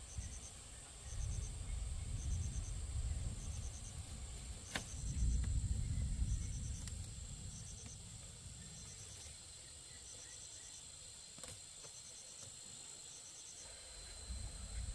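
Crickets chirping in a steady rhythm, a quick run of pulses about once a second, over a continuous high insect drone. A low rumble swells and fades in the first half.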